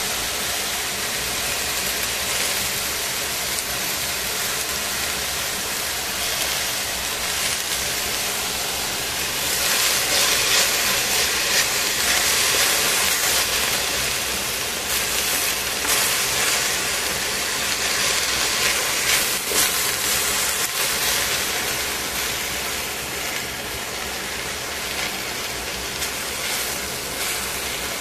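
Cabbage, carrot and shimeji mushrooms sizzling and steaming in a stainless steel pot, a steady hiss that grows louder for about ten seconds in the middle while the vegetables are turned with tongs.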